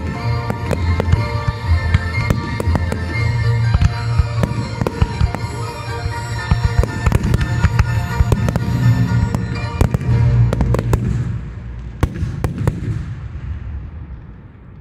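Fireworks display: many aerial shells bursting in quick succession, with crackling, over music with sustained notes and a deep bass. The bursts thin out after about eleven seconds, a few last bangs come around twelve seconds, and then the music fades away.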